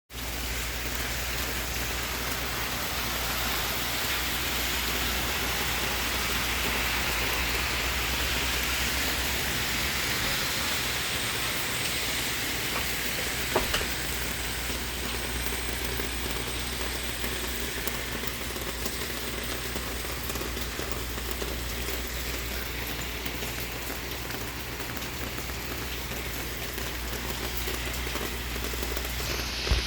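Steady rain falling, a continuous even hiss, with one sharp click about halfway through.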